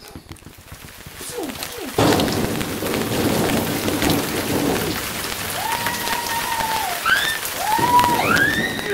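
Thunderstorm sound: a steady hiss of rain with low rumbling, swelling in and jumping louder about two seconds in. From about halfway, high sliding tones rise and fall over it.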